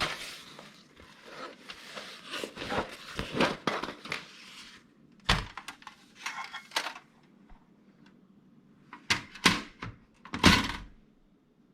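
A run of sharp cracks, snaps and knocks: dense and crackly for the first few seconds, then a handful of separate louder snaps and thuds, the loudest near the end.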